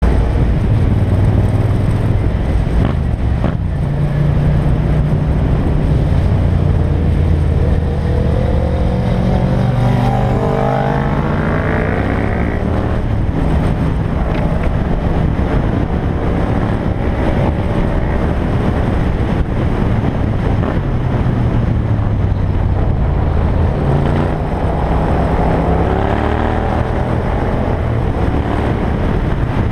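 Parallel-twin sport motorcycle heard from on board while riding, its engine rising in pitch twice as it accelerates, over steady wind rush on the microphone.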